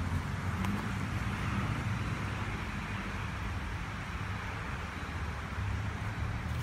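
A car engine idling steadily, a low even hum under a soft outdoor hiss.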